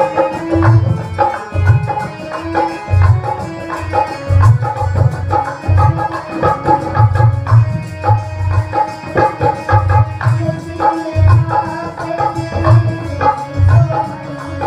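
Harmonium playing a melody with steady held notes over a hand-drum rhythm with deep repeated beats; an instrumental passage of a devotional song, without singing.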